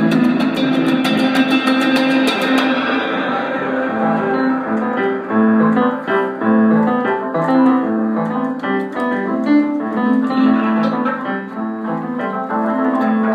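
Improvised instrumental music led by a keyboard playing a busy run of short notes. A fast high ticking in the accompaniment stops about two and a half seconds in.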